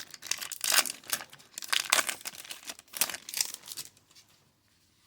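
Crinkling and rustling of a foil trading-card pack wrapper and cards being handled, in a run of quick bursts over about four seconds, then quiet near the end.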